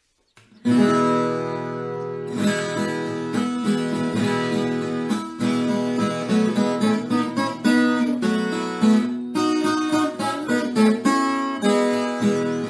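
Background music: acoustic guitar picking and strumming, starting about half a second in.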